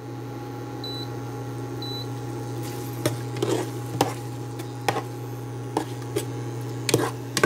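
Induction cooktop beeping twice as its temperature button is pressed, over the cooker's steady hum. Then a metal ladle stirs ground-meat sauce in the pot, with a handful of sharp clinks against the pot.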